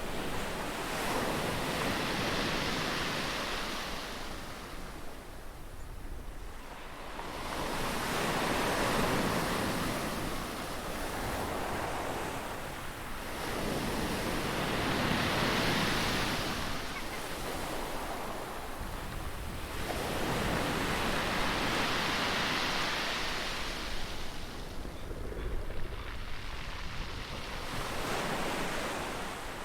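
Ocean waves breaking on a shore: the surf swells up and falls back about five times, roughly every six or seven seconds.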